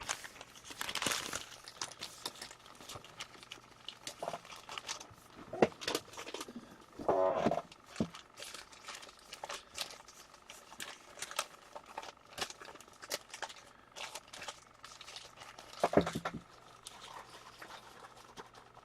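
Hockey trading cards and pack wrappers handled at a table: scattered soft clicks, slides and crinkles as packs are opened and cards sorted, with a few louder handling noises.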